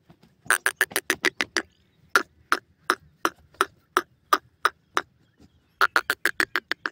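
Grey francolins calling in a series of short, sharp notes: a fast run about half a second in, then single notes about three a second, then another fast run near the end.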